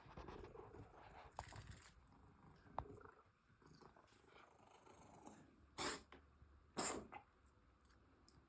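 Cat coughing in short, harsh hacks: a weaker one about a second and a half in, then two stronger ones about a second apart near the end. These are part of a recurring coughing episode in a 10-year-old cat with a persistent cough.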